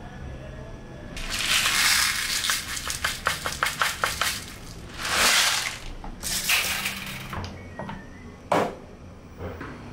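Downy Unstopables scent-booster beads rattling out of their plastic bottle into a plastic measuring cap in a quick run of clicks, then poured out in short rushes. Near the end comes a single sharp knock.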